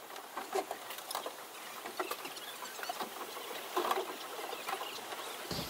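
Irregular light knocks and clicks over a faint hiss: rowboats and wooden oars bumping and clattering at a boat dock.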